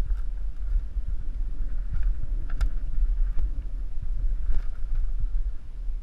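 Wind rumbling steadily on the microphone, with a few faint clicks.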